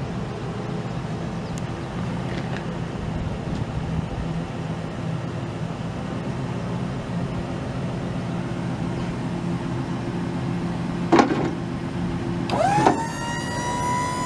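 Ford F-250's 5.4-litre V8 gas engine idling steadily. About eleven seconds in there is a sharp click, and a second later a small electric motor starts with a whine that rises quickly and then holds steady.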